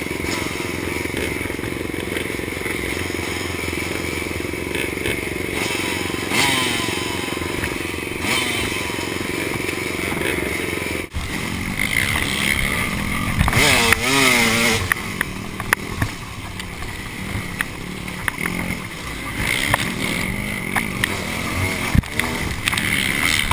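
Several dirt bike engines idling together for the first half. After a sudden cut, a KTM dirt bike is ridden along a rough wooded trail, its engine revving up and down a couple of times and knocks sounding over the bumps.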